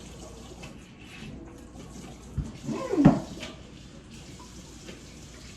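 Tap water running into a kitchen sink as it is rinsed out, with a couple of knocks against the sink near the middle, the second the loudest.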